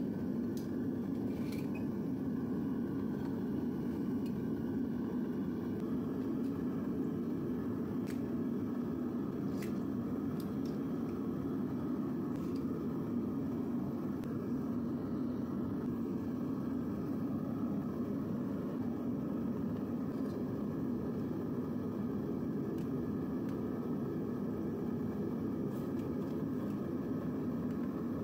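Propane burner of a Devil Forge melting furnace running with a steady roar while melting copper, with a few faint clicks scattered through it.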